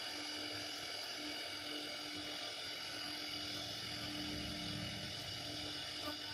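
CNC router spindle whining steadily while its carving bit cuts a relief pattern into a wooden door panel, with a lower rumble from the cut swelling briefly about four seconds in.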